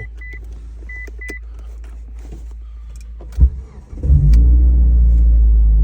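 A few short high beeps, then a 2005 Mitsubishi Lancer's engine is cranked about three and a half seconds in, catches and runs steadily and loudly. It starts on a freshly cut key whose chip was never programmed, which shows the car is not chip-key equipped.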